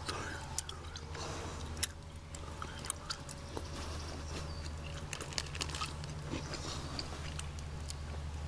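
Wood fire burning in a metal drum fire pit, crackling with irregular sharp pops several times a second over a steady low hum.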